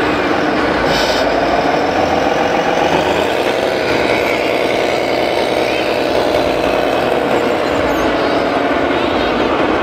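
Simulated diesel-truck engine sound from the onboard sound module of a radio-controlled MAN race-truck transporter. It rises in pitch over the first few seconds, then runs steadily as the truck drives along.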